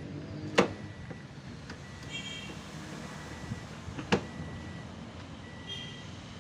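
Two sharp knocks, one about half a second in and one about four seconds in, with brief squeaks between them, from hand work on a fuel pump assembly being fitted.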